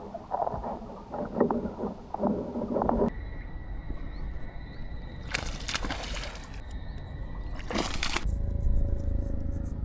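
Crunching as a smallmouth bass chews a crayfish, a quick run of crisp crunches for about three seconds that then stops. Later come two short bursts of hiss and a low rumble.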